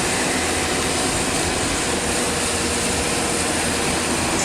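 Hyundai 220LC-9S excavator's diesel engine running steadily, a constant even drone.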